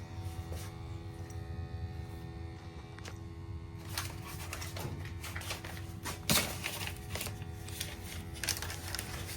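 Steady low rumble and hum of a firing gas water heater during a combustion test. From about four seconds in come irregular clicks and rattles of handling, the loudest a sharp knock a little past six seconds in.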